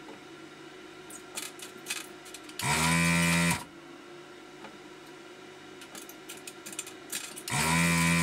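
Desoldering gun's vacuum pump running in two bursts of about a second each, a steady buzzing hum, as it sucks molten solder from a chip's pins. Faint clicks and ticks come between the bursts.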